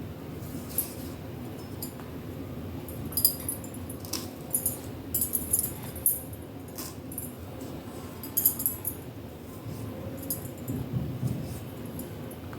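Taro stolons being cut and peeled by hand with a knife: scattered crisp scratches and light metallic clinks at irregular intervals over a low steady hum.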